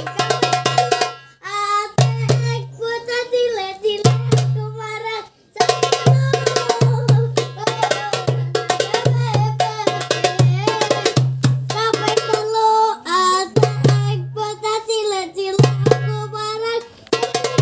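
Music with hand-drum percussion, a deep bass note repeating in a steady pattern and a melodic line that bends in pitch, played loud through a sound system for a sound check.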